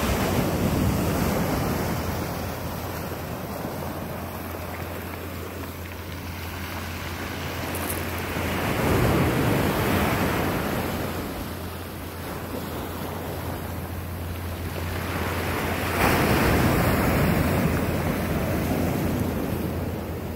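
Ocean surf breaking and washing up a pebble and cobble beach, swelling and fading. Louder waves break about nine seconds in and again, suddenly, about sixteen seconds in.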